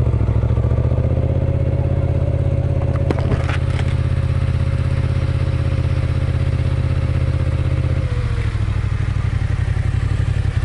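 Yamaha MT-07's 689 cc parallel-twin engine running steadily at low road speed, its note dropping slightly about eight seconds in as the bike eases off. A brief clatter about three seconds in.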